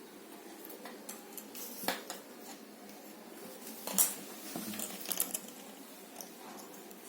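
Jigsaw puzzle pieces being handled and placed on a hard surface: scattered light clicks and clatter, the sharpest about four seconds in and a few quick ones about a second later.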